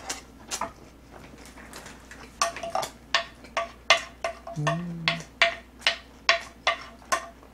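A spoon scraping and clicking against a ridged plate to gather up leftovers, in quick strokes of about two to three a second that start a couple of seconds in.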